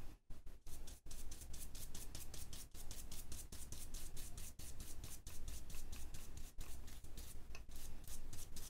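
Small ink blending brush scrubbing ink through a Mylar stencil onto card: a rapid run of soft, scratchy brushing strokes, several a second.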